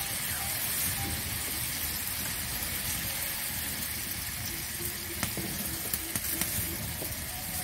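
Diced potatoes sizzling and bubbling in oily spiced masala liquid in a metal kadai, a steady sizzle with a few sharp pops about two-thirds of the way through.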